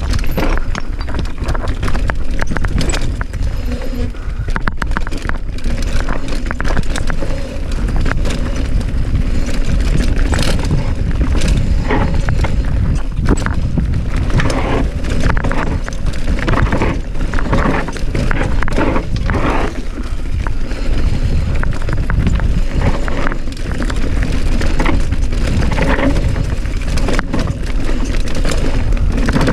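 Mountain bike clattering and rattling over rocks on a fast descent: rapid, irregular knocks from the tyres, chain and frame over a steady low rumble.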